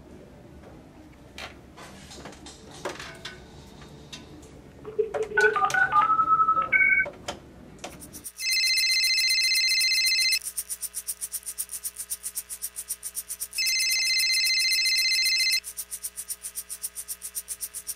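Handling clicks, then touch-tone dialing beeps at several pitches on a desk phone about five seconds in. From about eight seconds a flip cell phone rings: two electronic ringtone bursts about two seconds long each, over a fast, even buzzing as the phone vibrates on a metal track.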